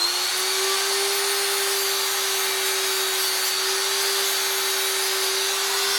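Handheld rotary multitool running at steady high speed with a steady whine, its bit working a sewing-machine shuttle to clean it up.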